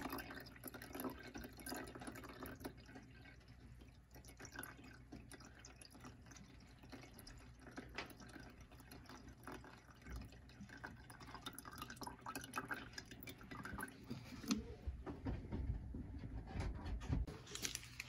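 Water poured from a plastic bottle trickling and dripping into the reservoir of an AC condensate pump, filling it to test whether the pump will switch on. Faint, with small irregular drips and ticks throughout.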